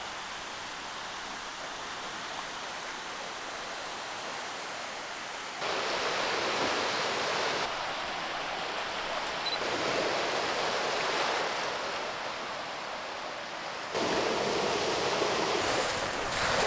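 Sea waves washing over rocks and water rushing through rock holes: a steady wash of surf that jumps louder abruptly about five and a half seconds in and again about fourteen seconds in.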